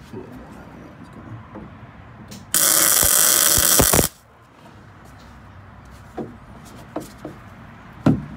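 Arc welder laying a short weld on steel tubing: a loud, steady hiss lasting about a second and a half, starting about two and a half seconds in. A few light knocks follow near the end.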